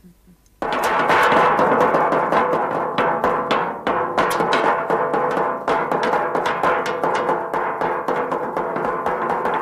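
Loud, fast drumming that breaks in suddenly about half a second in and keeps going without a break: a wooden cooking spoon and a rolling pin beaten like drumsticks to make thunder.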